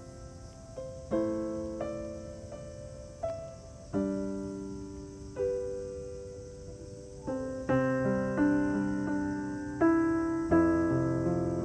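Slow, gentle piano music. Single notes and chords are struck and left to ring, about one every second or so, and the chords grow fuller near the end.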